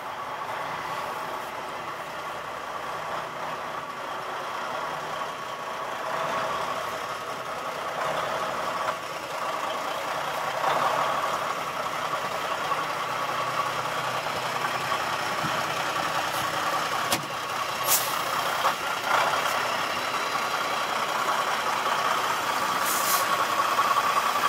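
Volvo semi truck's diesel engine running steadily, getting louder as the truck pulls out of the garage bay. A few short hisses come in the latter part.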